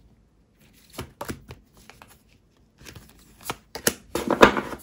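A deck of tarot cards being gathered and shuffled by hand: a few short card snaps and slides about a second in, then a dense run of shuffling near the end, the loudest part.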